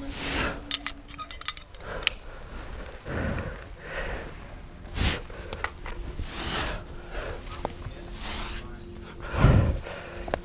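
A rock climber's hard, forceful breathing on strenuous moves: short loud exhalations and grunts every second or two, the heaviest near the end, with a few sharp clicks early on.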